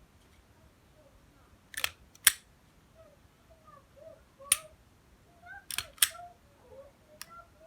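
A series of sharp mechanical clicks, about six at irregular intervals, some in close pairs, with faint short squeaks in between.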